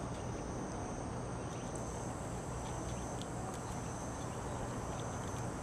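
Steady high-pitched insect chirring over a low hum, with a few faint light ticks from the paper-and-tape dart being handled.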